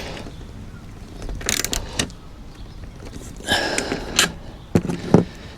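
A 10mm spanner and socket clinking and scraping on the nut of a solar panel bracket bolt as it is tightened, in a few short bursts, with sharp clicks near the end.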